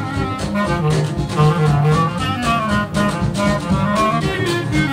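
Traditional Dixieland jazz band playing an up-tempo tune: trumpet, trombone and clarinet weave melody lines together over a rhythm section of piano, banjo, string bass and drums keeping a steady beat. It is a 1950 studio recording.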